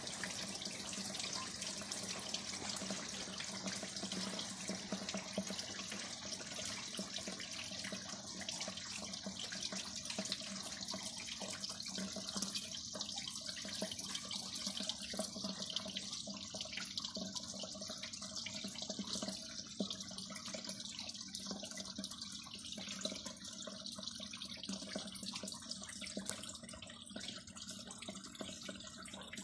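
Steady rain falling on a paved yard: a dense, even patter and hiss of drops splashing on wet concrete.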